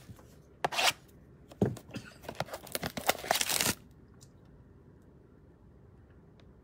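Plastic shrink wrap being torn and pulled off a cardboard trading-card blaster box: a short rip just under a second in, another at about a second and a half, then a run of rustling tears from about two to nearly four seconds in.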